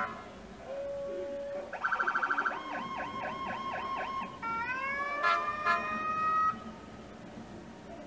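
Police car's electronic siren cycling through its tones: a short steady tone, then a fast pulsing tone, a quick up-and-down yelp, and a rising wail. Two short horn blasts come about five and a half seconds in, and the siren cuts off a little after six seconds.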